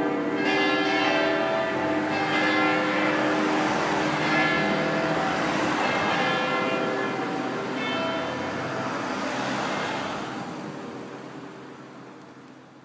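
Full peal of seven swinging bronze church bells tuned to C, their strokes overlapping in a dense jumble of ringing tones. The strikes thin out and the ringing fades away over the last few seconds as the peal ends.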